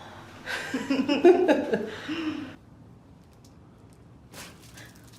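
A person laughing for about two seconds, then a lull and one sharp click near the end.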